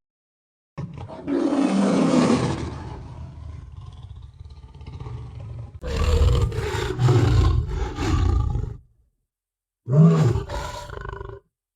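Tiger roaring three times: a long roar about a second in that trails off, a second one around the middle, and a shorter one near the end.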